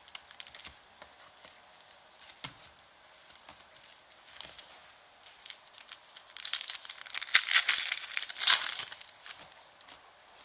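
Trading-card box and pack wrappers being opened by hand: small clicks and handling noises, then about six seconds in a loud spell of crinkling and tearing wrapper lasting about three seconds.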